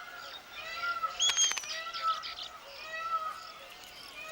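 Weaver birds calling: a steady series of short arched chirps, with a louder, sharper call about a second in.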